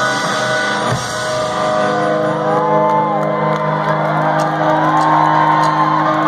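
Live rock band playing loudly: electric guitar, bass and drums, with a hit about a second in, then sustained chords and guitar notes that bend up and down in pitch.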